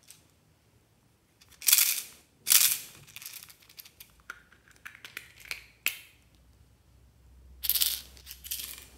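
Hollow plastic Peppa Pig toy being handled and pulled apart, with small plastic pieces rattling inside; a few loud, short clatters and scattered clicks, including a cluster near the end.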